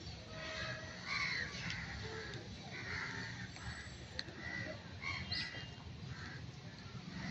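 Short animal calls come every half second or so over a steady low rumble.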